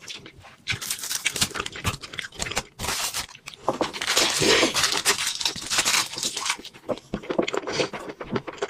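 A person eating close to the microphone: wet chewing, crunching and tearing of food in quick, irregular bursts, loudest and densest in the middle.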